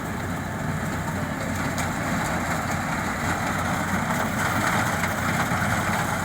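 Rice harvester running, a steady engine drone that grows a little louder about halfway through.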